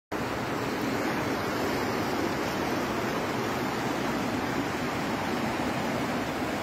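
The Panjkora River, a fast mountain river, rushing steadily; the sound starts suddenly just at the beginning.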